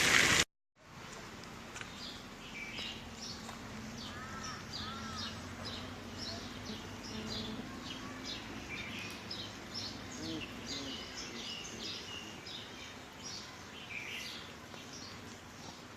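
Small birds chirping, a busy run of short high calls one after another, over a faint steady low hum; it starts after a brief cut to silence about half a second in.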